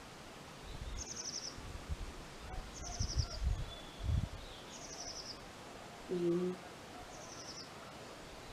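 A small bird singing a short, high, rapid trill, repeated four times about every two seconds. Low rumbles come and go through the first half.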